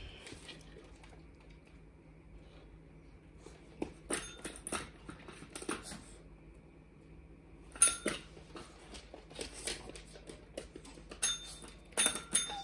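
Small push-button dog training bell pressed by a dog's paw, giving short metallic dings about eight seconds in and again near the end, among other light clicks and knocks.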